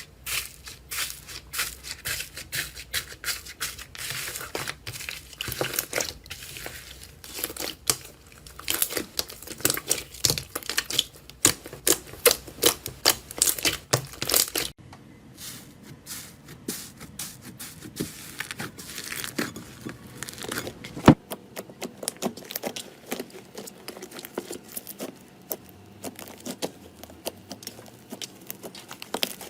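Slime being pressed, squeezed and stretched by hand, giving a dense run of small pops, clicks and crackles. The sound changes abruptly twice, about halfway through and again about two-thirds of the way in.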